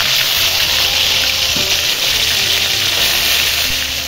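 Surmai (king mackerel) fish steaks sizzling steadily as they shallow-fry in hot oil in a kadai.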